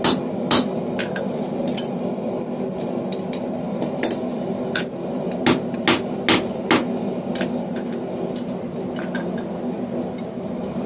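Hammer blows on a steel drift (a countersink tool) driven into a hole in a hot 1/2-inch square steel bar on the anvil, widening the hole. There are about a dozen sharp, ringing strikes in uneven bunches, a quick run of four in the middle, then lighter taps.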